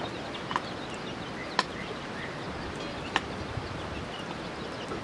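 Rural outdoor ambience with small birds chirping. A few brief sharp chirps stand out above the steady background.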